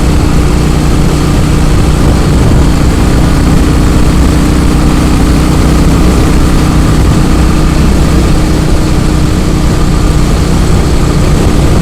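Royal Enfield Classic 500's single-cylinder engine running at a steady speed while riding, its pitch holding level.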